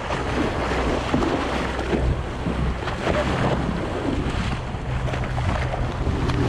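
Water rushing and splashing along the hull of a 35-foot Everglades powerboat running at speed, with wind on the microphone and a steady low engine hum underneath.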